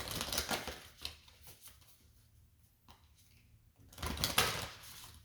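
Tarot cards being shuffled: two bursts of rapid riffling, one at the start and another about four seconds in, each lasting about a second.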